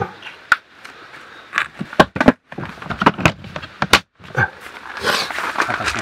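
Handling noises from small toiletry items being taken out of a plastic storage crate: an irregular run of sharp clicks and knocks, with rustling near the end.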